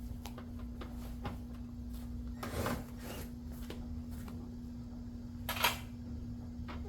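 Small clicks and clatter of hand tools working on car bolts, with two brief louder rasps, one about two and a half seconds in and one about five and a half seconds in, over a steady low hum.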